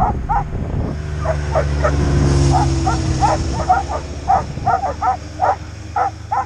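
Sled dogs yipping and barking in short, repeated high calls while a snowmobile engine hums close by. The engine is loudest about two to three seconds in and fades about five seconds in.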